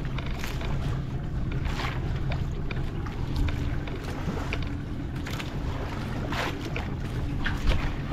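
Boat engine running steadily at sea as a low, even hum, with wind on the microphone and several brief splashes of water.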